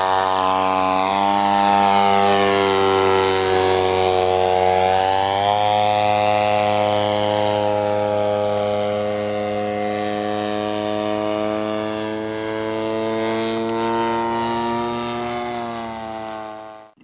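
Radio-controlled model airplane's engine and propeller running steadily in flight, the pitch sagging and rising slightly as it flies. The sound cuts off abruptly near the end.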